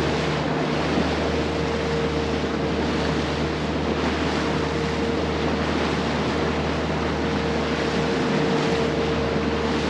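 Boat under way at trolling speed: the motor runs steadily as a low hum with a thin steady whine above it, mixed with the rush of water and wind on the microphone.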